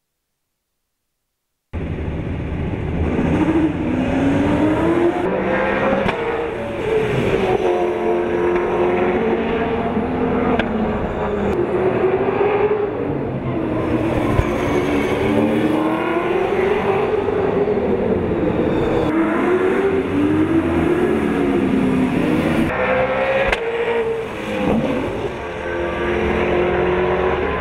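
After a short silence, V8 Supercar race cars' V8 engines at racing speed on the circuit, the engine note repeatedly rising and falling as the cars accelerate, lift and pass.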